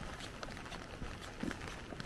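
Raindrops tapping on an umbrella canopy as many separate small hits over a steady hiss of rainfall, with a walker's footsteps; one duller footfall stands out about a second and a half in.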